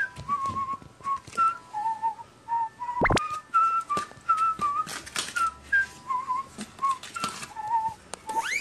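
A string of short whistled notes and little trills, hopping between a few pitches like a simple tune, mixed with sharp clicks and one quick upward-sweeping whistle about three seconds in.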